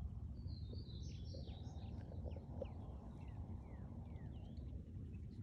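Birds calling outdoors: a run of short, high chirps, many of them sliding downward, over a steady low rumble.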